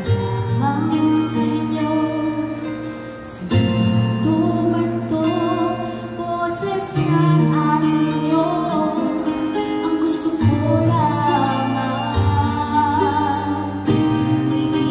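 A woman singing a song in Tagalog into a handheld microphone over instrumental backing music.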